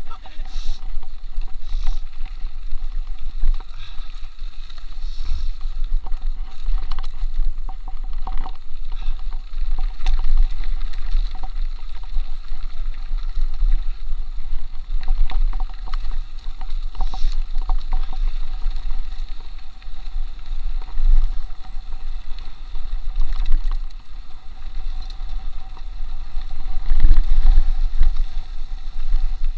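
Wind rumbling on a chest-mounted action camera's microphone while a mountain bike descends fast on a bumpy dirt trail, with scattered knocks and rattles from the bike over the bumps.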